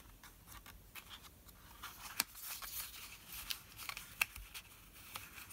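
Cardstock and paper being handled: faint rustling with a few light clicks and taps as a card and a paper strip are moved and fitted together, the sharpest about two seconds in and again about four seconds in.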